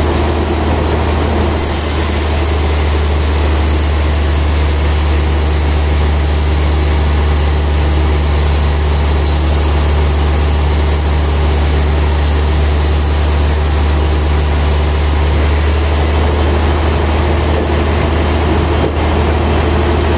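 Large log band saw running with a steady low drone, its blade cutting lengthwise through a trembesi (rain tree) log. A higher hiss comes in about a second and a half in and drops away about three-quarters of the way through as the carriage carries the log past the blade.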